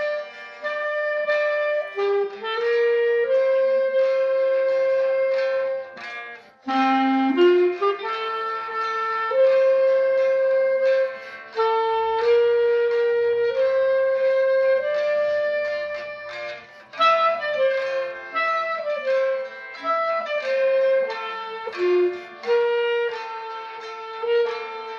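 Moresk M61 B-flat clarinet playing a slow hymn melody in long held notes, over a classical guitar backing track. There is a short break for breath about six seconds in.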